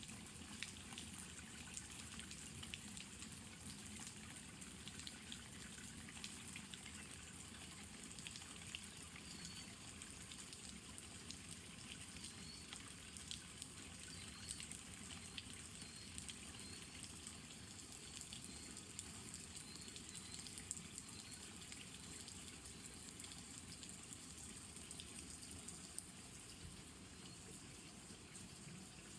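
Steady rain falling, with scattered sharper drip taps.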